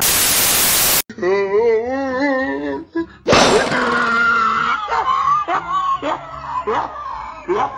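Loud TV static hiss for about a second that cuts off suddenly. It is followed by a wavering, warbling tone, then a sharp hissing burst a few seconds in that leads into voices and music.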